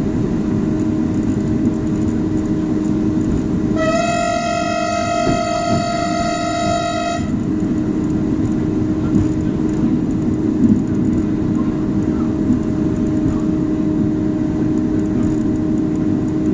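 A train's warning signal sounds one long steady blast of about three seconds, a few seconds in, over the steady rumble of the train running, heard from the cab.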